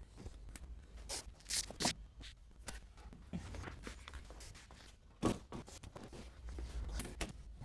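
Scattered light knocks and clicks of a timber frame being handled and bar clamps being fitted and tightened, with one sharper knock about five seconds in.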